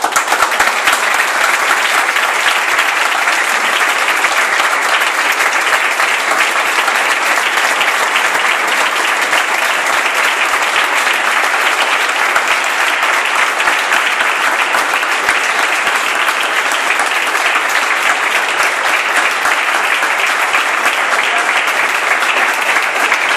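A large group of people applauding together: dense, steady clapping that does not let up, marking the end of a read-out statement.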